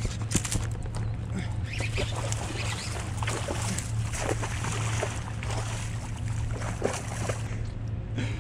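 Splashing and knocking as a striped bass is fought up to the kayak and lifted from the water, with several brief pitched sounds, over a steady low hum.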